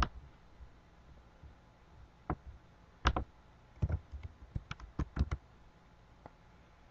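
Computer keyboard clicks as a transaction code is typed: a few scattered single clicks, then a quick run of keystrokes about four to five seconds in.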